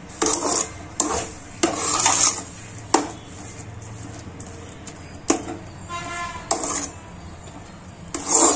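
A perforated metal spatula stirring and scraping thick carrot kesari around a metal kadai as sugar is mixed in. It makes a series of irregular scrapes against the pan.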